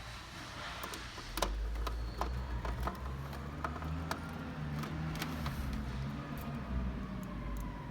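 A screwdriver driving the screws that hold the ice forming tray's motor in a small plastic ice maker: a string of sharp clicks and taps of metal on plastic, over a low rumble from about a second and a half in.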